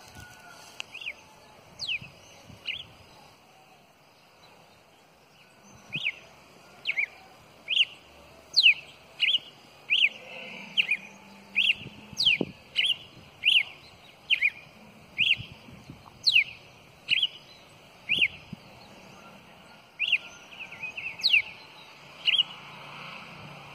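Caged male Campina songbird singing: a long series of short, clear whistled notes, each sliding down steeply in pitch, about one a second, with some notes coming in quick pairs.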